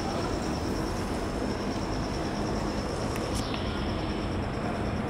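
Autumn insects trilling: a steady, rapidly pulsing high-pitched chirr over a low, even rumble of distant city traffic. A couple of faint clicks come about three seconds in.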